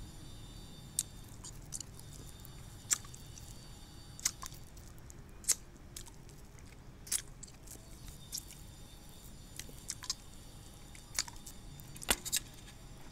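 Brittle dalgona honeycomb candy, made of sugar and baking soda, being bitten and chewed: about ten sharp, separate crunches, roughly one every second or so.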